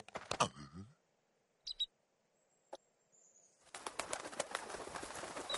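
Short grunting vocal noises from the cartoon bear, then a near-quiet stretch with a couple of small clicks, then from a little past halfway a fast, continuous flurry of a bird's wings flapping, with a few short chirps near the end.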